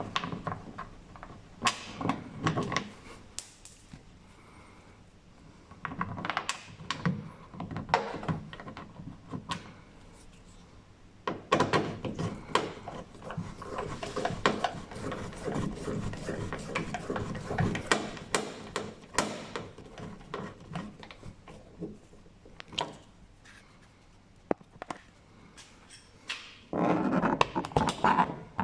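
Irregular knocks, clicks and rattles of hand work on car parts, coming in clusters with short quiet gaps and no motor running.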